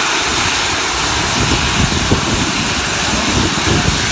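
Steam locomotive 46100 Royal Scot blowing off steam through its safety valves: a loud, steady hiss with irregular low rumbling underneath. Lifting safety valves are the sign that the boiler is at full working pressure.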